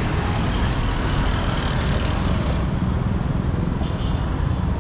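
Road traffic on a busy city street: vehicles running past in a steady, loud wash of noise with a deep low rumble.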